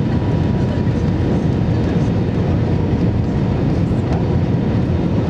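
Steady roar inside the cabin of an Airbus A320, its engines and airflow making an even low rumble with a faint steady hum on top.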